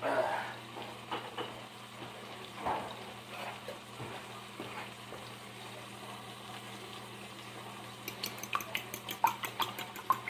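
Eggs and milk being beaten in a bowl: a quick, even clicking of a utensil against the bowl that starts about eight seconds in. Before that come a clatter at the start and a few scattered knocks and clinks of dishes.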